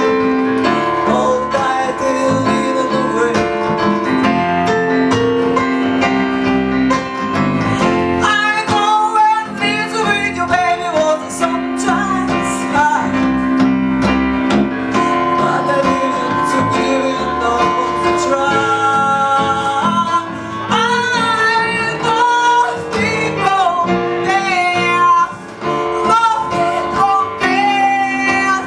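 A woman singing a song with keyboard and guitar accompaniment, live at a vocal recital.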